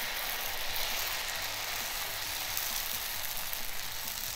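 Adai batter sizzling with a steady hiss on a hot black iron dosa griddle as it is spread in a circle with a ladle.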